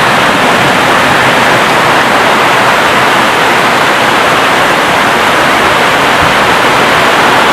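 Heavy rain pouring down in a thunderstorm: a steady, loud hiss of falling water that never lets up.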